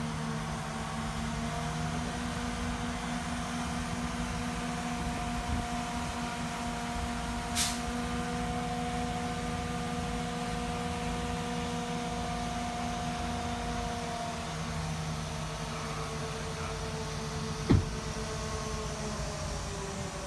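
Truck-mounted crane's engine running steadily under load with a humming whine, its pitch shifting slightly about two-thirds of the way through and again near the end as a boxed tree is lowered on the hoist line. A brief sharp hiss comes at about 7 s and a single sharp knock near the end.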